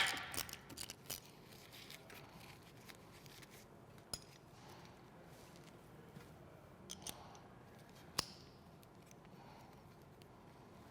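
A few faint, short metallic clicks and clinks of hand tools and small winch hardware being handled, with one sharp click at the very start and low room tone in between.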